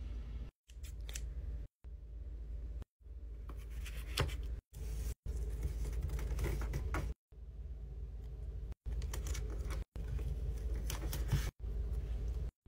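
Paper and tape being handled as white paper is folded over cardboard and taped down: rustling and a few short scraping rasps over a steady low hum. The sound cuts out abruptly to silence several times.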